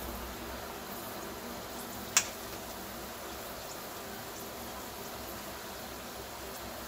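Moong dal batter balls deep-frying in hot oil in a kadhai: a steady sizzle, with one sharp click about two seconds in.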